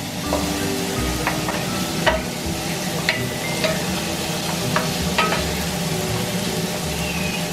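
Food sizzling in a hot pan while being stirred, with a metal utensil clinking sharply against the pan several times.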